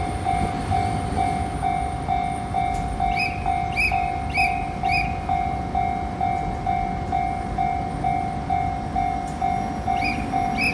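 Japanese railway level-crossing warning bell ringing in a steady electronic ding about twice a second, over the low rumble of a train running past.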